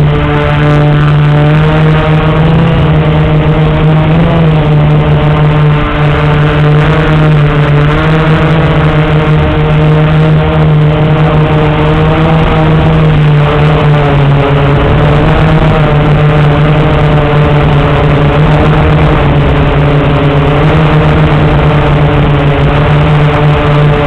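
Blade 350 QX quadcopter's four brushless motors and propellers in flight, a loud steady whirring buzz heard close up, as from a camera on the craft. Its pitch wavers slightly up and down as it flies.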